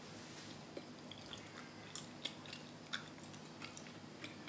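Quiet chewing of a soft, chewy mugwort rice cake (ssuk jeolpyeon), with a few soft, wet mouth clicks about two to three and a half seconds in.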